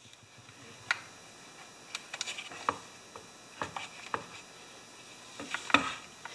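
Scattered light clicks and taps, irregular and about a second apart, from a screwdriver and the plastic chainsaw housing as screws are started into the carburetor mounting.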